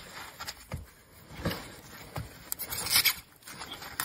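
Packing foam scraping and rustling as it is worked loose and pulled off a new trike's wheel by gloved hands: several short scrapes, with the loudest stretch about three seconds in.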